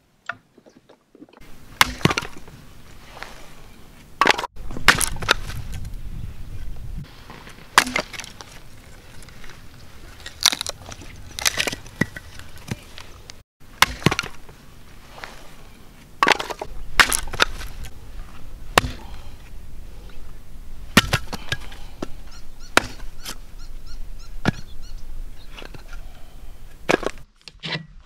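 Gerber hatchet chopping and splitting firewood into kindling: sharp wooden chops and cracks, one strike every second or two.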